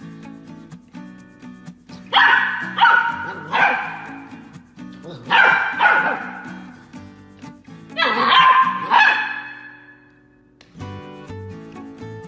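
Golden retriever puppy barking at a hand brush waved at it: short high yappy barks in three bouts, three barks, then two, then three, with pauses between. Background music plays underneath.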